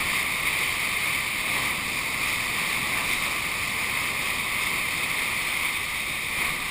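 Breaking whitewater of the Bono tidal bore, heard from right beside the foaming face: a steady rushing hiss with no let-up.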